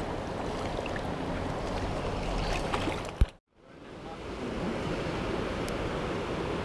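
Steady rushing of stream water. About halfway through there is a sharp click, then the sound cuts out completely and fades back in within a second.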